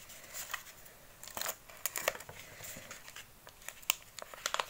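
Plastic packaging and tissue paper crinkling and rustling in handling hands, in short irregular crackles.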